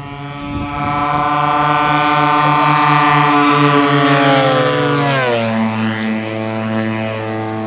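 Engines and 27x11 propellers of two large radio-controlled Extra NG aerobatic planes on a low formation pass, a steady buzzing drone that grows louder as they close in, then drops sharply in pitch about five seconds in as they go by.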